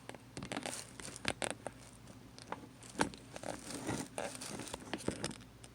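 Close handling noise: irregular rustling and crinkling with many short clicks and taps as something is fiddled with and adjusted near the microphone.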